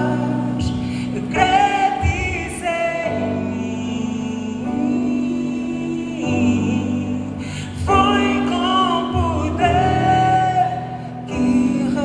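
A live gospel band playing while a singer holds long, gliding notes over it.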